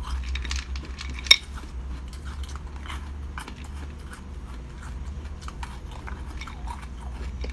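Frozen blue jelly balls clicking against each other and the glass bowl as fingers pick through them, with one sharp clink about a second in, then close-up biting and chewing.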